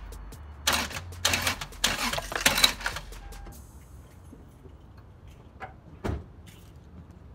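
Clattering and rattling in several short bursts over about two seconds, then a single dull thump about six seconds in.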